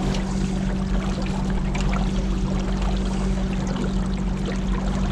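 Motorboat engine running steadily at cruising speed, with water rushing past the hull.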